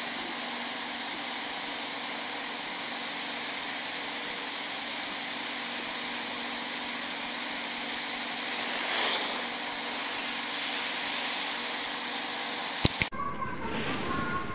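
Steady hiss of wind on the microphone beside a ski slope, with the scrape of a giant slalom skier's edges carving a turn swelling briefly a little past the middle. A sharp click near the end, after which the background changes.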